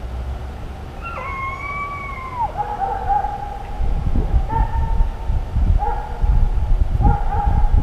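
Hunting hounds baying: one long howl about a second in that drops in pitch at its end, then a run of drawn-out bawls of about a second each, over low rumbling noise.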